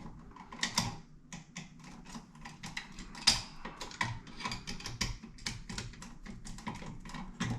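Hand tool working a stubborn wire off a rocker light switch's side terminal screw: many small, irregular metal clicks and scrapes.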